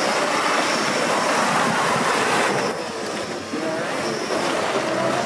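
Off-road 4x4 driving with its engine working under a loud rushing noise that eases about halfway through. The engine note rises near the end.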